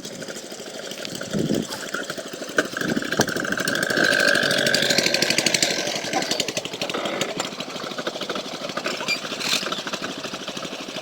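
An engine running with a fast, even knocking rhythm; a steady whine sounds between about three and six seconds in.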